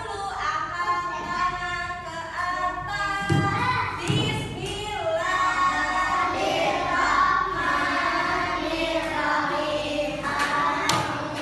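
A group of voices singing a song together, with two dull thumps about three and four seconds in.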